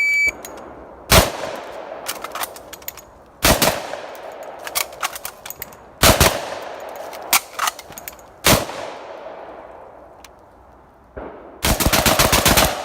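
A shot-timer beep, then a Typhoon F12 12-gauge shotgun firing: four single shots a few seconds apart, each with an echo, and lighter clicks and clanks between them. Near the end comes a rapid string of shots.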